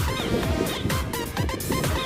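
Electronic dance music with a pounding kick drum, about two beats a second, under synth lines and hi-hats.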